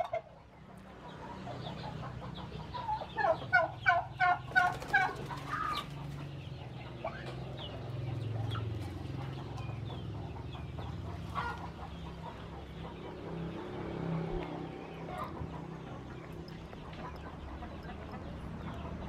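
Domestic turkeys and chickens calling. About three seconds in comes a run of roughly ten quick, evenly spaced calls, then scattered single calls over a steady low hum.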